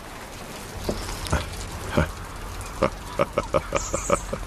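A few separate sharp knocks, then a quick run of about eight knocks at roughly five a second, over a steady hiss.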